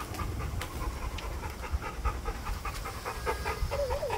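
American Bully puppy panting rapidly, about four breaths a second, with a short wavering whine near the end.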